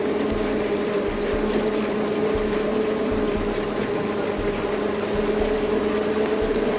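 Sightseeing cruise boat's engine running steadily at an even pitch, with a constant rush of water and air noise around it.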